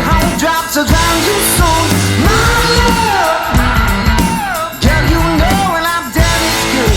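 Loud rock song with a driving beat and bending, sliding melody lines.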